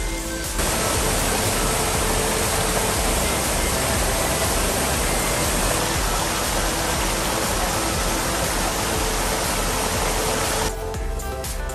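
Waterfall pouring into a rocky pool: a loud, steady rush of water that cuts in about half a second in and stops abruptly near the end, where music takes over.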